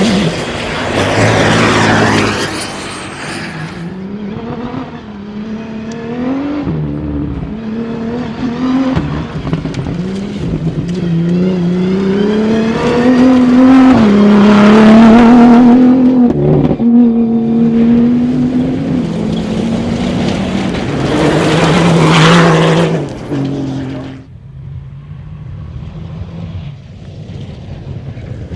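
Rally-raid race car engines accelerating hard, pitch climbing and dropping back with each upshift. There are loud close pass-bys at the start and again near the end, after which the sound falls away sharply.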